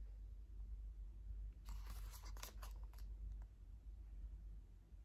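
Cardboard packaging of an eyeshadow palette handled in the hands, with a short cluster of scrapes and crinkles about two seconds in, over a steady low hum.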